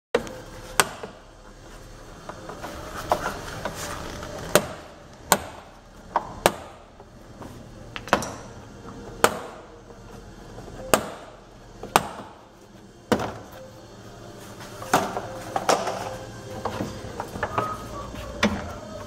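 Sharp plastic knocks and clicks, about a dozen at irregular intervals, as hands press and pull at a Renault Kangoo's plastic rear bumper and its trim strip. Faint music plays underneath.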